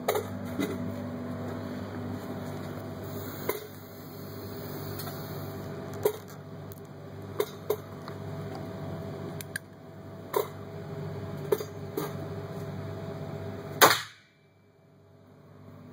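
A single sharp shot from a Ruger Single-Six .22 revolver near the end, the loudest sound, after which the level drops away abruptly. Before it, a steady ventilation hum with scattered small metallic clicks and knocks.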